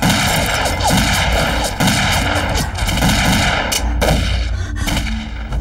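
Dense, rapid gunfire in a film battle soundtrack, many shots overlapping with hardly a break. It thins briefly about four and a half seconds in.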